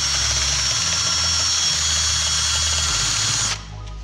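Handheld power tool running steadily with a high whine, then switched off and cutting out about three and a half seconds in.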